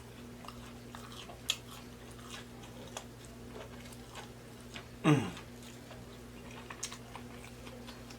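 Close-miked chewing of a mouthful of sandwich, with many small wet mouth clicks and smacks. About five seconds in there is a short falling vocal "mm" from the eater.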